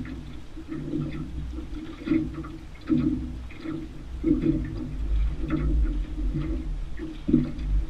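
Small waves lapping and slapping irregularly against the side of a jon boat, over a steady low rumble.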